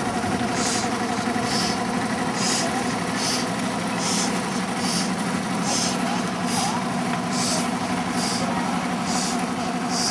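7¼-inch gauge live-steam model of the Lynton & Barnstaple tank engine Taw chuffing slowly, a soft hiss of exhaust a little more than once a second, over a steady low hum.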